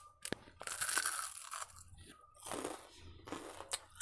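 A person biting into and chewing a deep-fried vada: a crunching bite at the start, then chewing in a few short noisy bursts.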